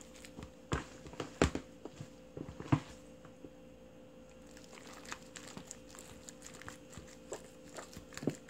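Rubber-gloved hands packing chili-seasoned napa cabbage kimchi into a glass container: scattered wet squelches and soft slaps of the cabbage leaves, two sharper ones about one and a half and nearly three seconds in, with a quieter pause in the middle.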